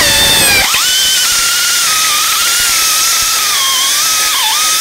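Pneumatic die grinder with a burr bit grinding the head off a rivet in a metal bike tube: a steady high whine over air hiss, the pitch sagging briefly as the bit bites near the end, then winding down.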